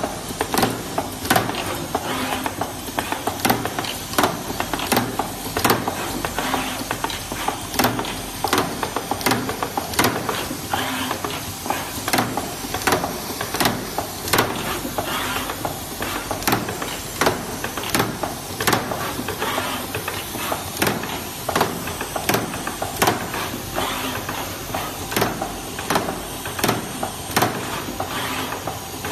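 Automatic 18650 cell series/parallel spot welding machine running empty, with no cells being welded: its pneumatic cylinders and mechanisms clack in irregular sharp knocks, about one or two a second, over a steady machine hiss.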